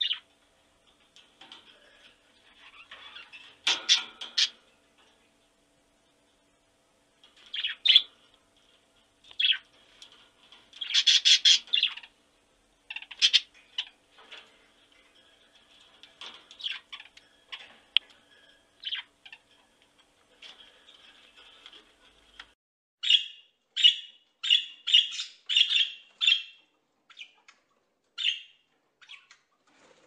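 Macaws calling: harsh squawks come at irregular intervals, then a quick run of about eight short squawks, roughly two a second, near the end.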